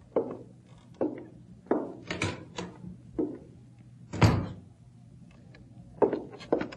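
Radio-drama sound effects: footsteps knocking on a bare floor at a walking pace, a door shutting with a heavy thud about four seconds in, then footsteps again near the end.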